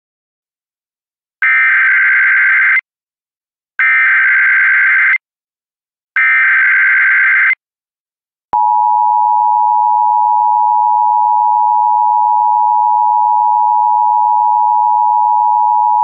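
Emergency Alert System SAME header: three identical bursts of warbling digital data, about a second and a half each, which encode and announce an incoming emergency alert. About eight and a half seconds in, the steady EAS two-tone attention signal starts and holds unbroken.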